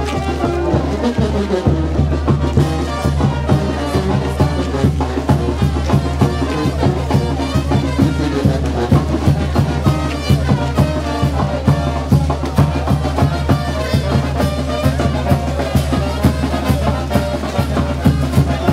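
Brass band music with drums, playing a lively tune over a steady beat and a sustained low bass line.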